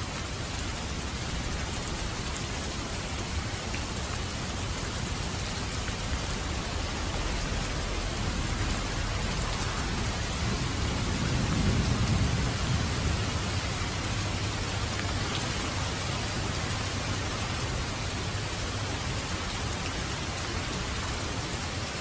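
Steady rain, an even hiss of many drops, with a low rumble that swells and fades about halfway through.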